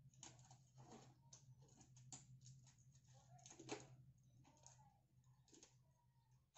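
Faint rustling and soft clicks of disposable gloves being pulled off and balled up in the hands, over a low steady hum.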